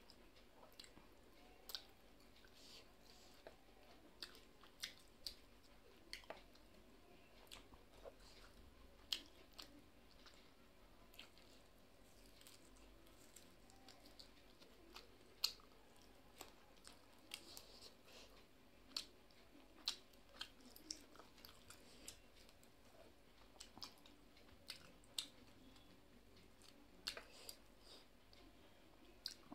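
Faint close-up chewing and mouth smacks of a person eating rice and chicken curry by hand, with short sharp clicks about every second or two.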